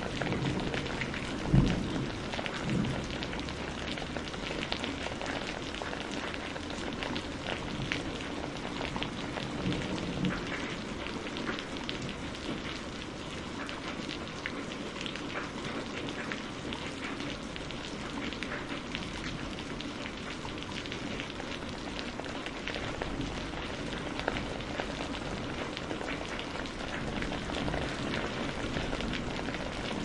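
Steady rain pattering on a surface, thick with small individual drop strikes. A short low thump comes about a second and a half in, with a few softer low swells after it.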